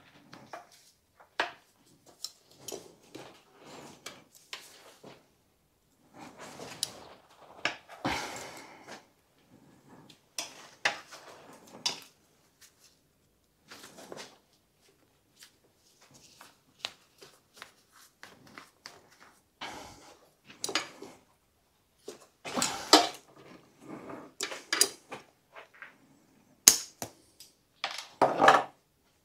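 Irregular clicks, knocks and scraping rustles of hands and tools working at a bonsai pot as the tree is secured with tie-down wire. The knocks come thicker and louder near the end.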